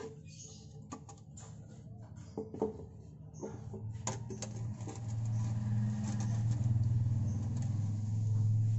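Light plastic knocks and clicks as a PVC skimmer pipe is fitted into the pond's floor-drain socket. From about four seconds in, a steady low hum swells up and becomes the loudest sound.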